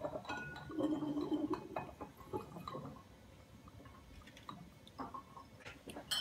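Scattered light clinks and taps of brown glass beer bottles as a bottling wand on siphon tubing is moved into a bottle to fill it with beer.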